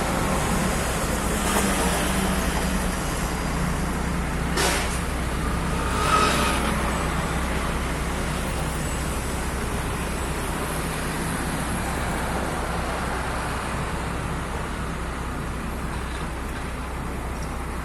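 Petrol engine of a tamping rammer running steadily, with two short sharp knocks about five and six seconds in.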